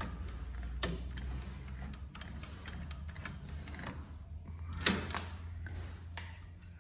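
Scattered mechanical clicks and ticks from an industrial walking-foot sewing machine worked by hand at the needle and handwheel, over a steady low hum. The two sharpest clicks come about a second in and near five seconds in.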